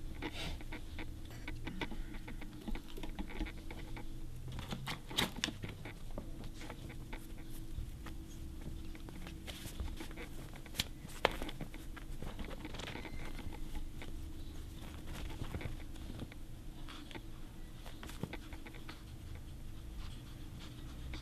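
A pet ferret moving about, its claws pattering and scratching in a string of small, uneven clicks and scrapes over a low steady hum.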